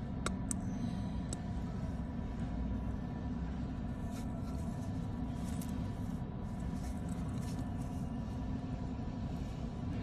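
A steady low rumble with a faint steady tone behind it. A few sharp clicks come in the first second and a half, and light metallic clicks follow from about four seconds in as the stainless-steel watch and its link bracelet are handled.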